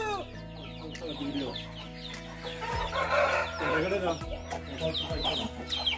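Chickens clucking, with many short high peeps throughout and a louder call about three seconds in.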